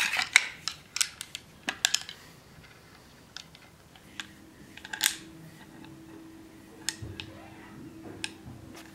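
Clicks and clinks of a pattern-welded knife and its scabbard's metal fittings being handled on an anvil, thickest in the first two seconds, then a few scattered clicks over a faint steady hum.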